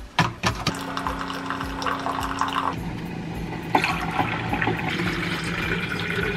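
Keurig single-serve coffee maker brewing coffee into a mug with a steady hum. About three seconds in, water is poured from a pitcher into a plastic water bottle.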